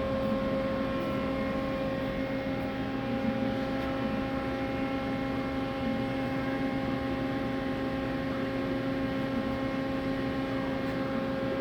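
Mori Seiki SL-15MC CNC turning center powered up and idle between programs, giving a steady hum with a clear pitch and overtones.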